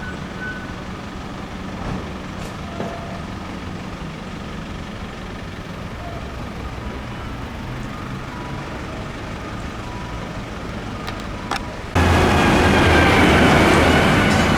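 Steady road-traffic noise with a low engine hum. About twelve seconds in, a much louder, dense noise starts abruptly.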